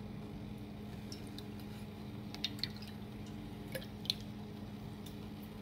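A spatula stirring vinegar, sugar and salt pickling liquid in a stainless steel pot to dissolve the sugar: quiet liquid swirling with a few light clicks against the pot about halfway through. A steady low hum runs underneath.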